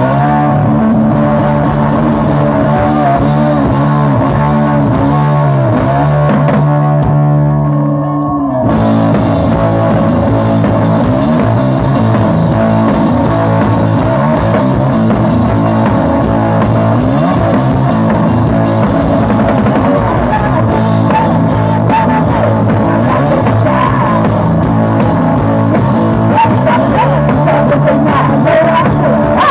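Live punk-blues rock band playing loud: guitar over a drum kit. About seven seconds in, the drums and cymbals drop out for under two seconds while the guitar rings on, then the full band comes back in.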